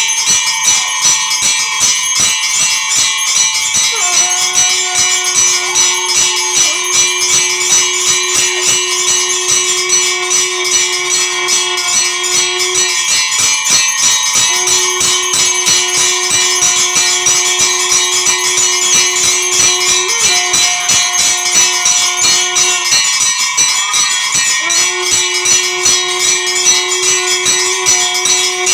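Temple bells ringing rapidly and continuously. A long held low note sounds with them three times, each lasting several seconds, starting about four seconds in.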